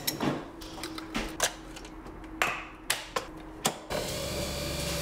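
Several clicks and knocks of a Nespresso capsule coffee machine being handled and its lid shut; about four seconds in, the machine starts running with a steady whirring hum.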